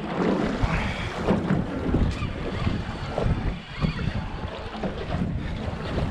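Wind buffeting the microphone, with sea water slapping against a small aluminium boat's hull in irregular gusts.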